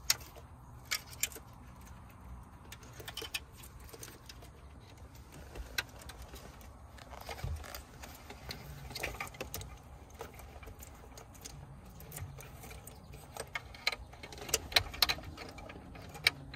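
Scattered clicks and rattles of plastic wiring-harness connectors being handled and pushed into the sockets on the back of a car radio head unit, with a denser run of sharper clicks near the end.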